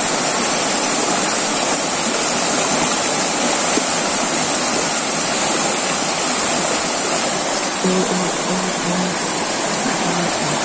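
River rapids: fast water pouring over boulders, a loud, steady rush.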